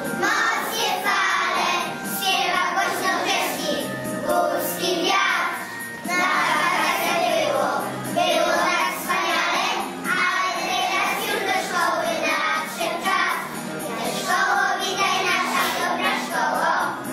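A group of young children singing a song together, with music accompanying them.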